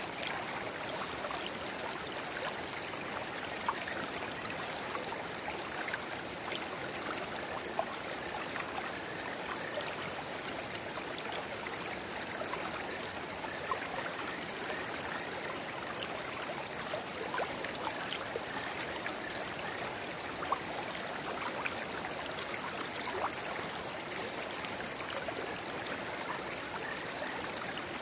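Shallow river flowing and babbling steadily where a small spring-fed rivulet runs into it, with many small splashes and plinks scattered through the water noise.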